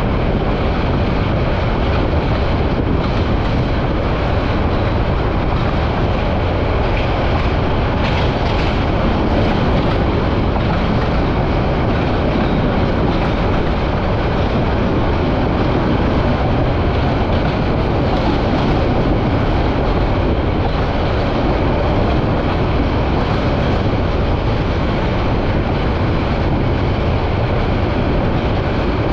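Bangladesh Railway passenger train running, heard from inside the carriage: the steady noise of the wheels on the track and the coach moving.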